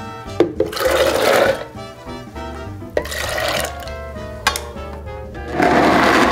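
Soaked black soybeans and their soaking water poured from a bowl into a blender jar, over background music. About five and a half seconds in, a Blendtec blender starts grinding the raw beans and runs steadily; it is the loudest sound.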